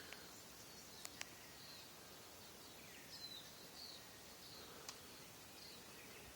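Faint birds calling in the rainforest canopy: a string of short, high chirps over a quiet background hiss, with a few sharp clicks about a second in and near five seconds.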